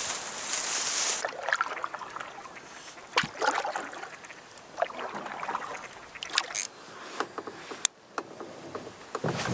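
Canoe paddling: a paddle dipping and pulling through the water in short splashy strokes about a second apart, with drips and light knocks on the hull. It opens with a second of steady hiss, and a sharp click and a louder knock come near the end.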